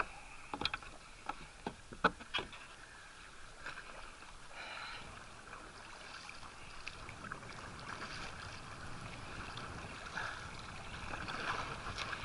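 Kayak paddling in the sea: the paddle blades splashing in and water trickling off them, over a steady wash of water. A few sharp knocks come in the first couple of seconds.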